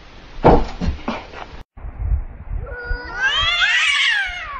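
A kitten thumps against a wall mirror a few times, then a short gap. Then a cat gives a long, wavering yowl that rises and falls in pitch: a threat caterwaul in a standoff with another cat.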